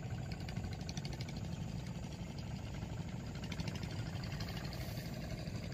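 Small boat engine running steadily at low speed: an even, low drone with a fast regular pulsing.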